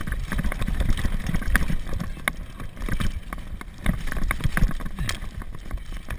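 Downhill mountain bike rattling down a rough dirt trail: irregular sharp clicks and knocks from the bike over a steady low rumble.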